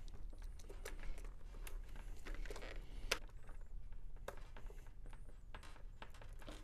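Faint handling noise of a plastic chin strap buckle and strap being fitted onto a football helmet's top post, with scattered small clicks and one sharper click about three seconds in.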